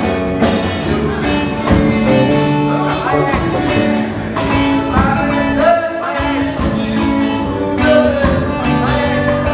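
Band music with a lead voice singing over a steady drum beat, in an upbeat gospel style.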